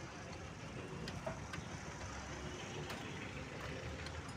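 Low, steady rumble of distant road traffic, with a few faint metallic clicks.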